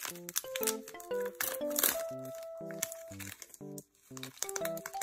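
Plastic wrapper of an Umaibo corn puff stick crinkling and tearing open, loudest a little under two seconds in, over background music with a steady beat of short notes.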